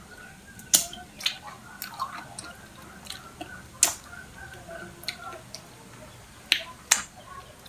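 Wet, sharp smacking pops from a mouth sucking fingers clean and smacking lips while eating. They come one at a time at uneven gaps, the loudest about a second in, near four seconds, and twice near seven seconds.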